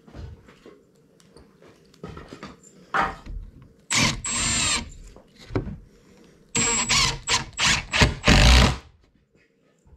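Cordless screwdriver driving screws into wood. There is one long run about four seconds in, with a high motor whine whose pitch bends as the screw tightens, then a rapid series of short bursts over the last few seconds.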